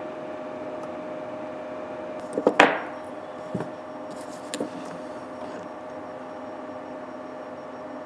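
Metal pliers and a soldering iron set down on a workbench: a quick clatter of knocks about two and a half seconds in, the loudest with a short metallic ring, then two lighter knocks a second apart. Under it a steady hum with a level tone from the workshop's heating furnace.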